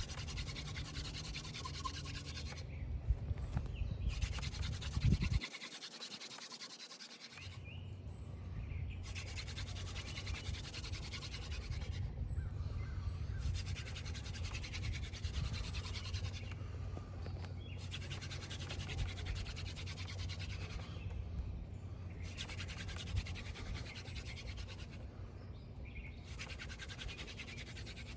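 Hand drill friction fire: a dogfennel spindle spun between the palms grinding into a water oak fireboard, a steady rubbing, scraping noise broken by short pauses about every four to five seconds as the hands return to the top of the spindle for another pass.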